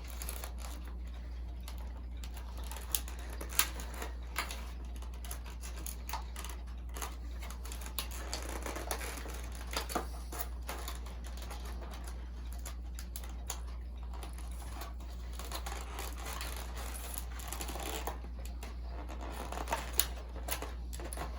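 A model-airplane box and its packaging being handled: scattered clicks, taps and rustles of cardboard and wrapping as the model is worked out of the box, with a few sharper taps, over a steady low hum.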